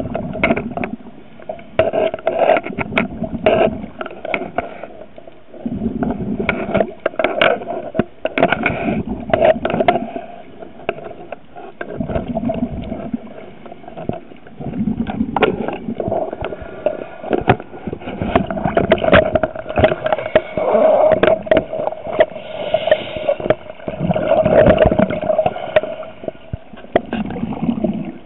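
Water sloshing and gurgling around a handheld underwater camera near the surface, rising and falling in irregular surges with scattered sharp cracks, over a steady hum.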